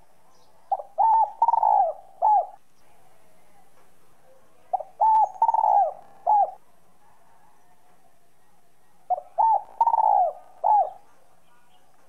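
Spotted dove cooing three times, about four seconds apart. Each call is two quick notes, a longer drawn-out coo and a short closing note, in the clear whistle-like voice that keepers call 'giọng còi'.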